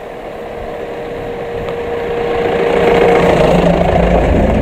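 Mahindra Bolero Camper pickup's 2.5-litre diesel engine running as the truck drives up and passes right over, growing steadily louder and loudest from about three seconds in.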